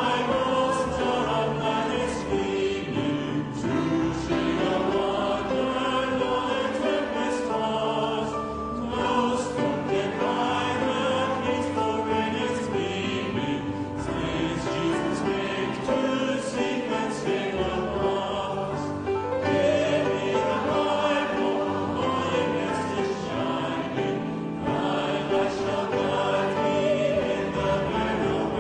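Recorded choral music: a choir singing in full, sustained chords, with a wavering vibrato on the held notes.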